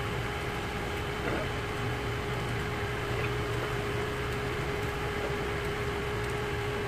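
Steady machine hum with a constant mid-pitched tone, unchanging throughout.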